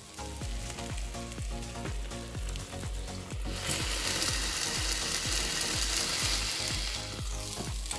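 Gummy bears sizzling as they melt on the hot plates of an electric waffle cone maker; the sizzle swells about three and a half seconds in. Background music with a steady beat plays throughout.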